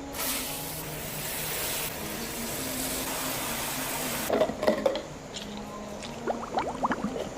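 Water running in a steady spray for about four seconds, then cutting off, followed by a few knocks and short squeaks.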